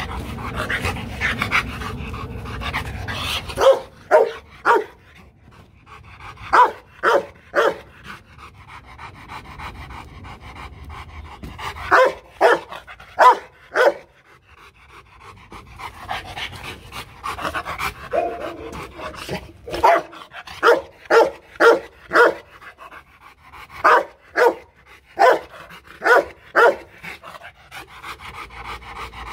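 Rottweiler barking loudly in quick runs of about three to six deep barks, with pauses and panting between the runs. It is a playful warning bark, not a threat-to-attack bark.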